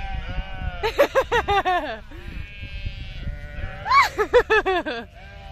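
Sheep bleating twice, each call about a second long with a quick wavering pitch.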